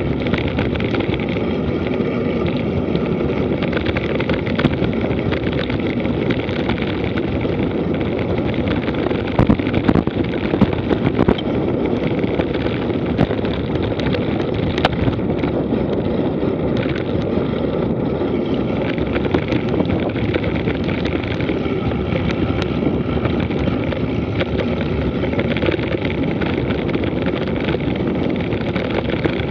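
Wind rushing over the microphone and mountain-bike tyres rolling on a dirt road during a fast descent, a steady noise throughout. There is a short run of sharp rattles and knocks from the bike over bumps around ten seconds in.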